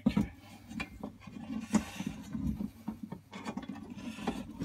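Hands working the pillar drill's table bracket onto its metal column: irregular scraping and rubbing of metal on metal, with a sharp knock at the very start and scattered light clicks.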